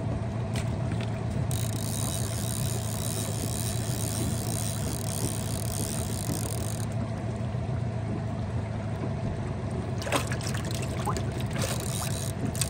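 A small boat's outboard motor running steadily, with water rushing past the hull. A few short clicks and knocks come about ten seconds in.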